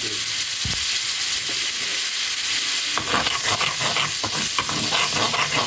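Coca-Cola sizzling in a hot pan with butter and a garlic sauce: a steady hiss, with crackling and spattering growing denser about halfway through as it cooks down toward caramelising.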